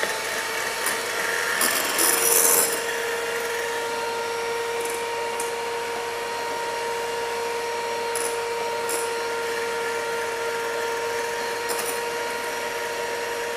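Electric hand mixer running at a steady high speed, a constant motor whine, its beaters whipping meringue in a glass bowl. Short scraping rattles come about two seconds in, around the middle and near the end as the beaters catch the glass.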